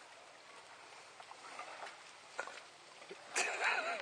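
Soft water splashing and lapping as dogs paddle in shallow sea water, with a few faint clicks. About three and a half seconds in, a short loud cry with a wavering pitch.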